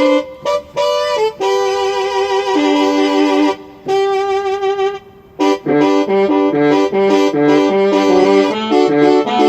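Banda-style brass sample played on a keyboard synthesizer: a few short stabs, then long held notes with vibrato, then a rhythmic phrase over a bouncing bass line from about five and a half seconds in.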